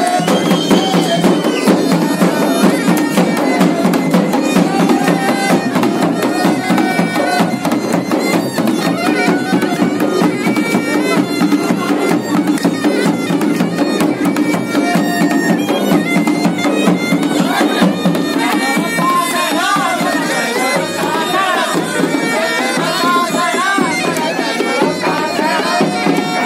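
Garhwali folk band of masak (bagpipe), dhol and damau playing a folk tune: the bagpipe's steady drone and melody over fast, continuous drumming.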